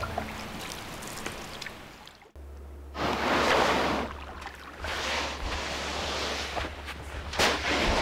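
Faint paddle dips and drips from a canoe on calm water, then after a sudden break, small waves washing on a sandy lakeshore in repeated swells over a steady low wind rumble, with one sharp knock near the end.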